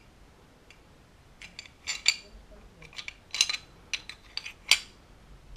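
Sharp metallic clicks and clinks of a stainless pistol slide and barrel knocking together as they are handled during cleaning. The clicks come scattered over a few seconds, the loudest near the end.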